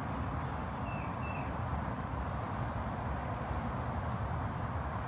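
Wild birds chirping: two short calls about a second in, then a run of high twittering calls through the middle, over steady low background noise.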